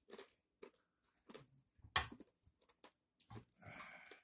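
Someone chewing crunchy crispy pork skin: a run of irregular crisp crunches, the loudest about two seconds in, with a denser crackling stretch near the end.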